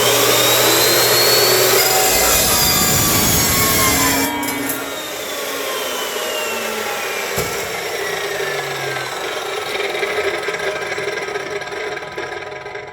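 Evolution S380CPS 15-inch dry-cut metal chop saw cutting through 3-inch steel exhaust tubing with its carbide-tipped blade. The motor's whine rises as it spins up. It grows quieter about four seconds in, then the whine falls slowly as the blade winds down, and the sound fades near the end.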